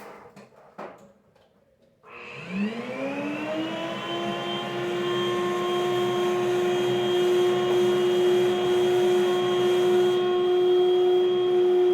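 A few handling knocks, then about two seconds in a vacuum cleaner is switched on: its motor spins up with a rising whine and settles into steady running.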